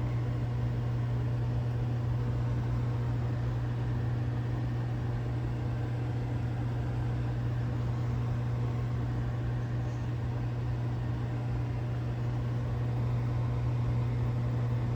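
Microwave oven running mid-cycle with a steady low hum.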